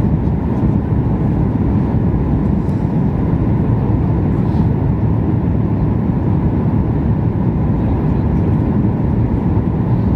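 Steady low rumble of cabin noise inside a Boeing 737 MAX 8 airliner, heard from a passenger seat, with no change in level.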